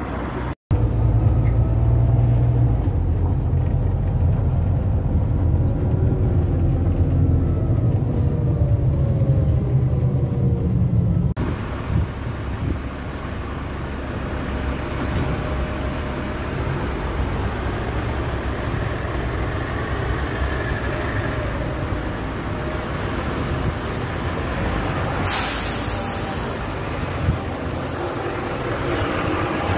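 Heavy vehicle engine rumble, loud and low, for the first ten seconds or so. Then steady city street and traffic noise, with a short loud hiss of air about 25 seconds in.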